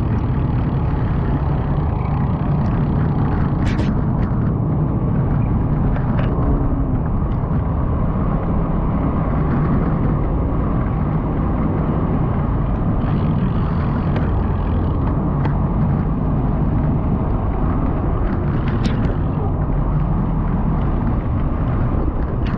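Steady, heavy wind and road rumble on the microphone of a moving vehicle, with a few short clicks.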